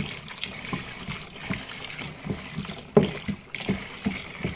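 Hot water pouring in a thin stream into a plastic basin of lumpy liquid-soap mixture, with sloshing and irregular knocks from a wooden stick stirring it; one louder knock about three seconds in.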